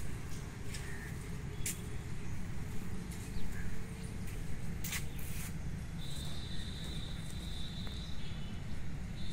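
Outdoor ambience: a steady low rumble with a few sharp clicks, and a high steady trill that sets in about two-thirds of the way through and comes back near the end.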